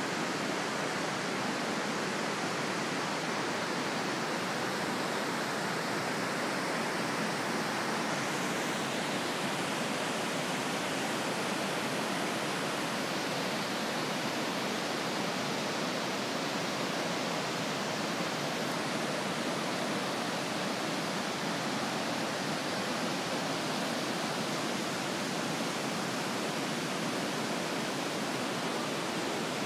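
Fast mountain stream flowing into a limestone cave, a steady rush of water.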